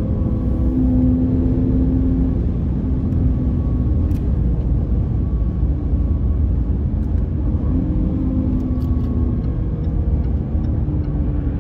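Jaguar XE S's supercharged V6 running at speed, heard from inside the cabin under a steady low rumble of tyre and road noise.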